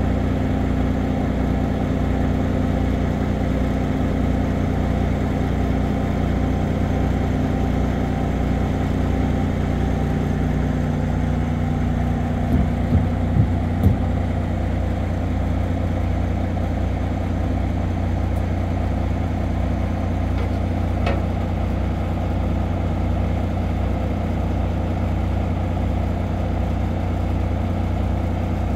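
Diesel engine of a semi tractor idling steadily, with a few short knocks about halfway through.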